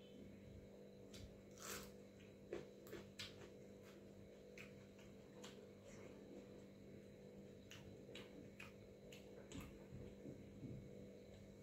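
Faint eating by hand: soft, irregular clicks and squishes of fingers working watery rice on a steel plate, and chewing, over a low steady hum.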